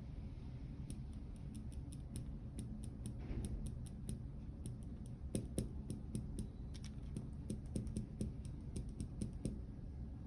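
Light, irregular clicks and taps, several a second and thickest in the second half, from fingers tapping and sliding on a touchscreen while scrolling a list, over a low steady room hum.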